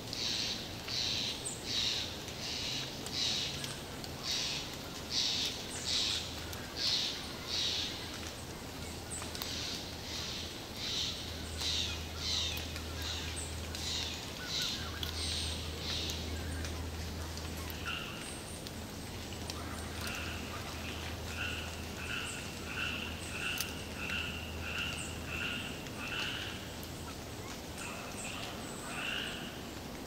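Forest ambience with animals calling over and over: harsh high calls about one and a half times a second for the first half, then a lower, clearer call about three times a second from a little past the middle. A faint low hum sits underneath through the middle.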